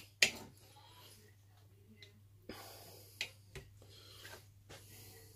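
Knife and fork cutting a piece of rib-eye steak on a ceramic plate: faint scraping with a few sharp clinks of cutlery against the plate.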